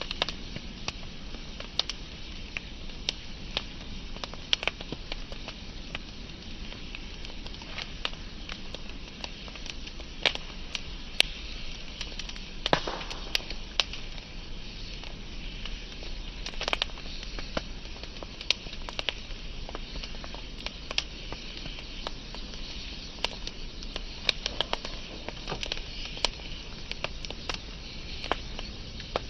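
Wood fire burning steadily with a soft hiss and frequent irregular crackles and pops from the burning logs, a few sharper pops standing out.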